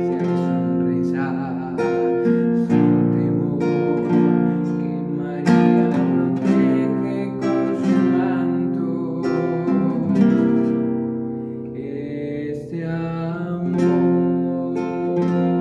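A man sings a slow ballad in Spanish to his own strummed acoustic guitar, played with a capo.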